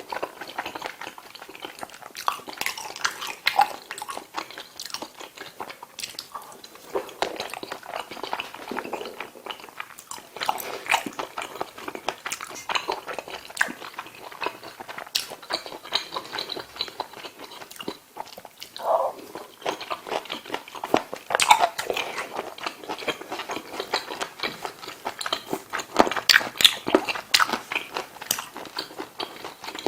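Close-miked eating: a mouth chewing and biting a meal of pork belly kimchi stew with ramen noodles, curry rice and Vienna sausages, with a steady run of small wet clicking and crunching sounds.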